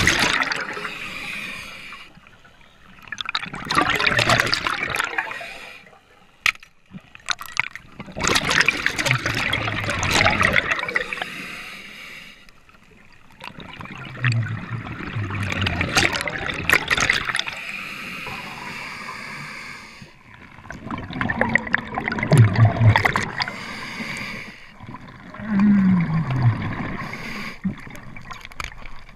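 Scuba diver breathing through a regulator underwater: loud bursts of bubbling, gurgling exhalation about every four to six seconds, about six breaths in all, with quieter gaps between.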